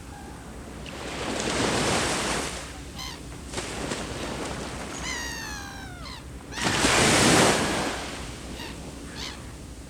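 Sea waves breaking and washing on the shore, swelling twice, the second time the loudest near the middle. Between the two swells a bird gives a short call that falls in pitch, after a couple of brief notes.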